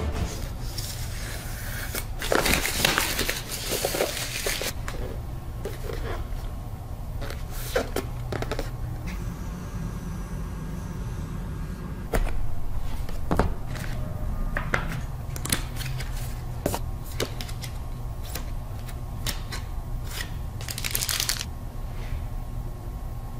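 Hands handling and unpacking a cardboard knife box and its contents: rustling and crinkling of packaging with scattered taps and clicks, longer rustles a couple of seconds in and near the end, over a steady low hum.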